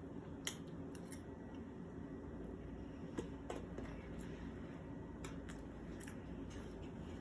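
Eating sounds: scattered faint, sharp clicks and smacks of chewing, about eight in all, over a steady low room hum.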